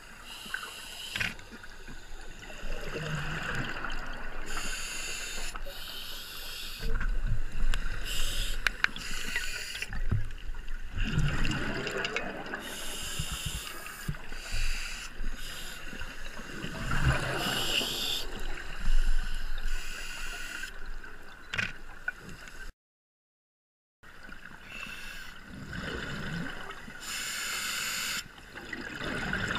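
Scuba regulator breathing underwater, heard through a GoPro's waterproof housing: recurring hissing breaths and gurgling bursts of exhaled bubbles every few seconds. The sound cuts out for about a second roughly three-quarters of the way through.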